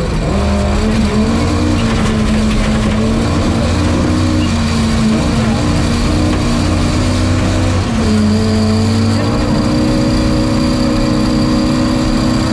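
Ford Escort Mk2's Cosworth BDG twin-cam four-cylinder held at high revs from inside the cabin, its pitch dipping briefly a few times and then climbing again, over the noise of tyres on gravel.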